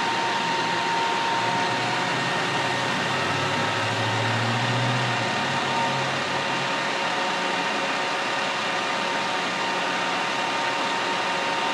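Steady machinery drone with a constant whine running through it; a low hum swells briefly about four to five seconds in.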